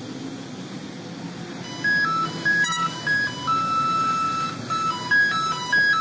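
A low, steady rumble of the tram running on its rails, then from about two seconds in a simple electronic melody of pure beeping tones that step between a few notes and hold one longer note in the middle.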